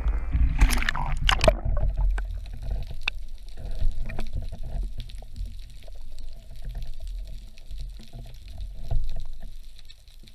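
Water splashing at the surface for about a second near the start, then muffled underwater sound: a low rumble of moving water with scattered faint clicks and crackles.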